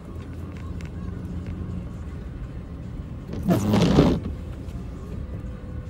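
Car driving, a steady low engine and road rumble heard from inside the cabin. About halfway through, one loud swish of the windshield wiper sweeping across the glass.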